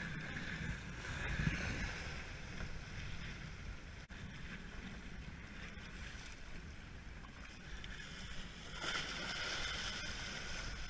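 Wind buffeting an action camera's microphone over water lapping and sloshing against a stand-up paddleboard. About nine seconds in the water noise grows louder as the sea churns beside the board.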